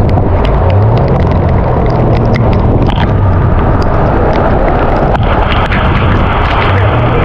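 A vehicle engine running with a low hum that shifts pitch a few times, under a loud steady rush of noise and scattered sharp ticks.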